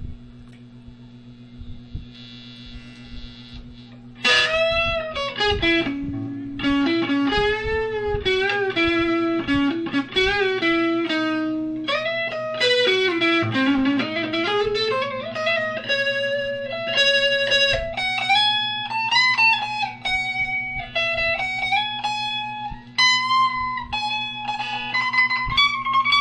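Electric guitar playing a slow single-note lead melody, with wavering vibrato and bent notes, over a steady low amplifier hum. The melody starts about four seconds in, first winds downward and then climbs to higher, held notes near the end.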